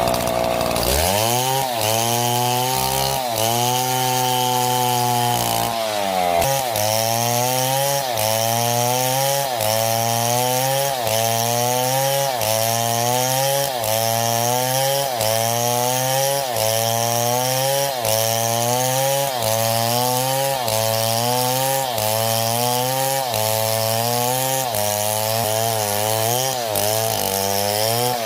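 Chainsaw cutting through wood under load. Its engine pitch drops sharply about half a second in, then sags and recovers in a steady rhythm about once a second.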